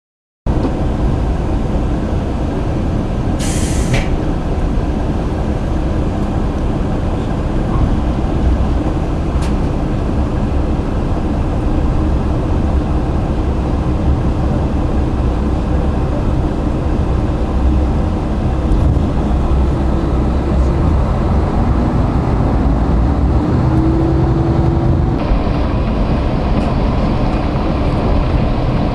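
Sanriku Railway diesel railcar running along the line, heard from on board: a steady rumble of engine and wheels on the rails. There is a short hiss a few seconds in, and the engine note rises for a couple of seconds about three-quarters of the way through.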